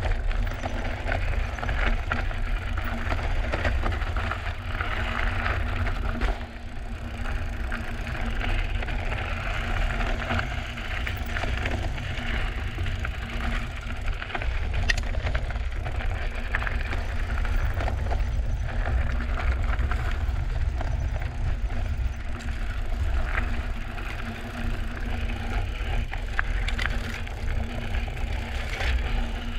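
Drop-bar mountain bike riding over rocky trail: tyres crunching and crackling over gravel and rock, with scattered sharp clicks and rattles and a steady low rumble underneath.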